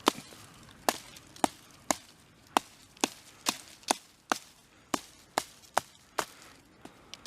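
Cheap mini hatchet multitool chopping into a fallen log: a quick, even run of about fifteen light blade strikes into the wood, roughly two a second.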